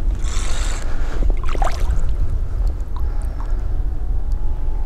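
Wind buffeting the microphone, heard as a steady low rumble, with a brief hiss about a quarter second in.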